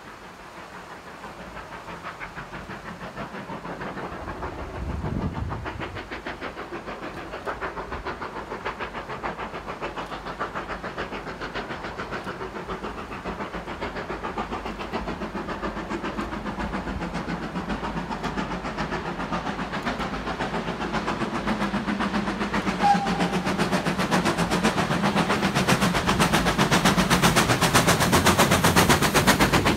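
Steam locomotive hauling a train and working hard, its quick, rhythmic exhaust beats growing steadily louder as it approaches and reaching their loudest near the end.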